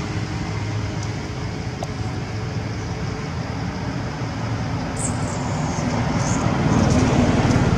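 A motor engine running steadily with a low hum, growing louder near the end, with a few faint high squeaks about five seconds in.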